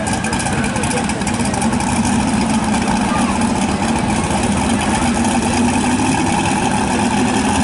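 Twin-turbocharged engine of a modified two-wheel-drive pulling truck with a 2005 Chevy Silverado body, running steadily at an even pitch without revving up.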